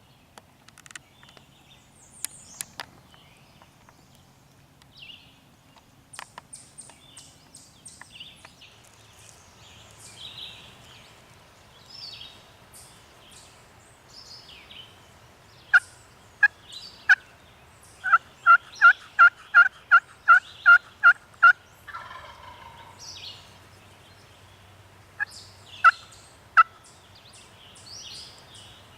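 Wild turkey yelping: a series of loud two-note yelps, a few spaced out and then a quick run of about a dozen at roughly three a second, with a few more near the end. Songbirds chirp throughout.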